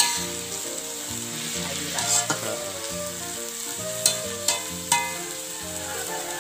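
Cauliflower and green vegetables sizzling as they are stir-fried in a metal wok. A metal spatula scrapes and knocks against the wok a few times, with sharp clanks just after the start, about two seconds in, and three more between four and five seconds.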